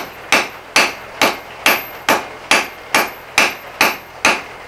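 Hand hammer striking a glowing 3/8-inch round steel bar on the edge of an anvil. The half-face blows come steadily at about two a second, each with a short metallic ring, drawing down a neck for a leaf's stem.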